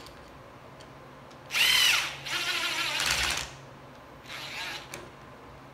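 Cordless impact driver driving a handlebar clamp screw in short bursts. There is a loud whine that rises and falls about a second and a half in, then a longer noisy run of about a second as the screw is driven, and a brief fainter burst near the end.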